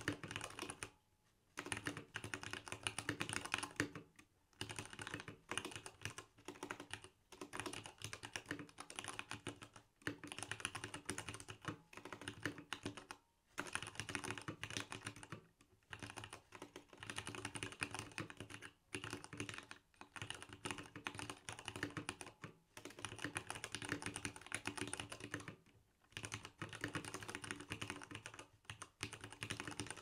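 Typing on a Leopold FC660M mechanical keyboard with stock Cherry MX Black linear switches: dense runs of keystrokes broken by brief pauses every few seconds.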